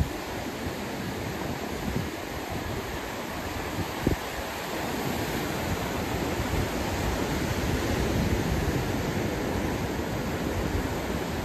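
Ocean surf breaking on a rocky cobble beach below, a steady wash of water noise, with wind buffeting the microphone and a couple of brief low thumps.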